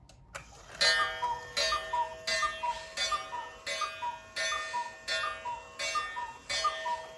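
Regula cuckoo clock striking ten o'clock: its bellows pipes give the two-note cuckoo call over and over, about one every 0.7 s. Each call comes with a gong strike that rings on between calls. Both bellows are lifting properly and the clock is calling normally.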